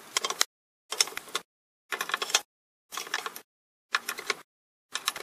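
Screwdriver clicking and scraping as it tightens the Phillips screws of a small-engine carburetor, heard in chopped half-second bursts about once a second with dead silence between.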